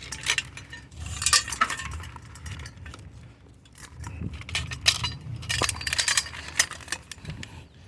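Pieces of light scrap metal clinking and rattling as they are handled and sorted: a run of short, irregular clanks and clicks.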